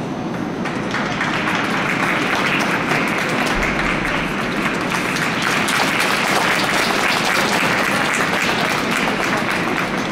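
Audience applause: many hands clapping, starting about a second in and keeping up steadily.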